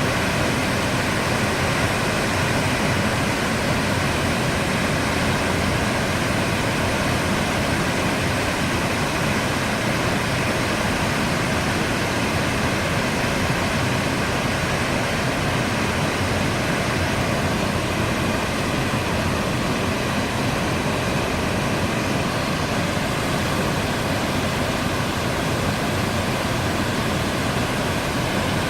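Cumberland Falls, a wide river waterfall, producing a steady, even rush of falling water.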